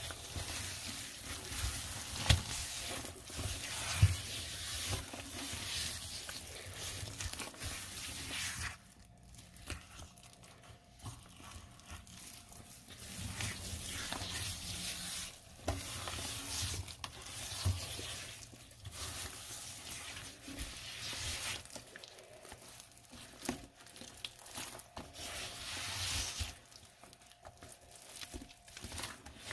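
Rubber-gloved hand scrubbing and squishing a thick, wet paste of Comet cleanser and baking soda around a stainless steel basin: gritty, squelching swishes in uneven strokes. Two sharp knocks stand out a few seconds in, and the scrubbing eases off for a few seconds near the middle.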